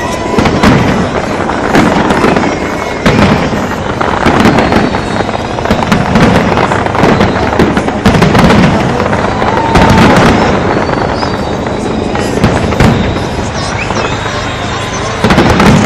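Large fireworks display with shells bursting in quick succession: repeated bangs and crackling, a fresh burst every second or so, over a constant haze of noise.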